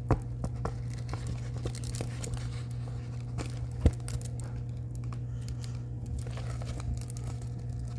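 Small plastic bags of diamond painting drills crinkling and rustling as they are handled, with scattered light clicks and one sharp tap about four seconds in, over a steady low hum.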